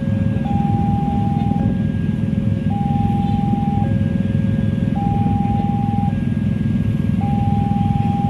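Railway level-crossing warning alarm sounding while the barrier is down: an electronic two-tone signal alternating high and low, each tone about a second long, the pair repeating roughly every two seconds. It sounds over a steady low rumble.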